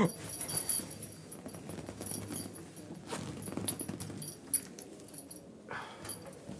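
Radio-drama foley of small handling noises in a room: scattered light knocks, clinks and rustling, with a short louder rustle near the end.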